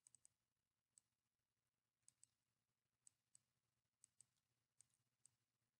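Computer mouse clicking faintly, about a dozen single and paired clicks at irregular intervals against near silence.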